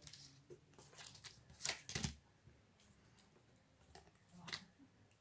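Trading cards handled and laid down one at a time on a table: a few short, faint card flicks and rustles, the clearest about two seconds in and near the end.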